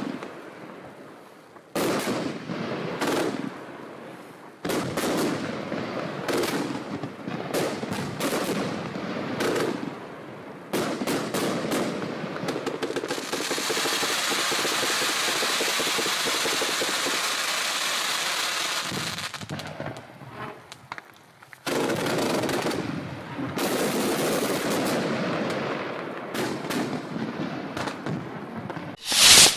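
Display firework cakes firing rapid volleys of sharp reports, like machine-gun fire. About halfway through comes a steady, dense hiss of about six seconds, and a single loudest bang lands near the end.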